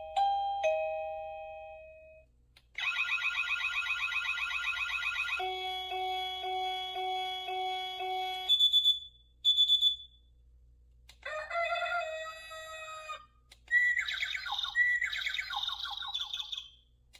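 Wireless doorbell receiver playing a series of its built-in chime tones one after another: a two-note ding-dong fading out, then a warbling alarm-like tone, an evenly pulsed electronic melody, a few short high beeps, and near the end an animal-call sound effect.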